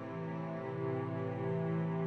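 Background music: slow, sustained chords with no voice.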